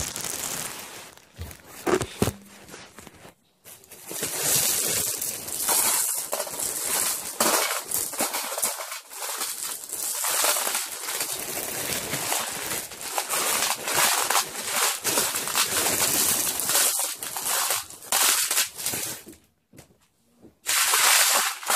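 Small rocks being shaken out of a clear plastic bag and spread over a tray: the bag crinkling and the stones clattering against each other in a long busy run, broken off briefly near the end.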